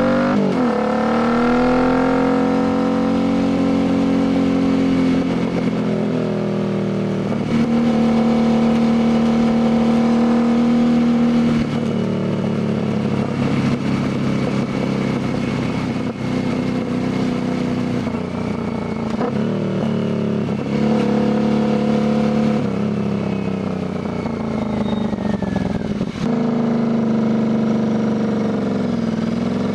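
Royal Enfield Continental GT 650's 648 cc parallel-twin running through an aftermarket Diablo full exhaust while riding. The engine note drops sharply at the start, holds steady, steps up, then slowly falls as the bike slows, drops off once more and rises again near the end as it accelerates.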